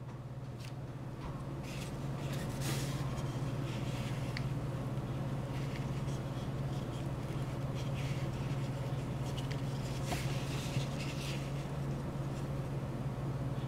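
Parts of a rubberized snap-on phone case being handled, giving scattered light rubbing and clicking noises over a steady low hum.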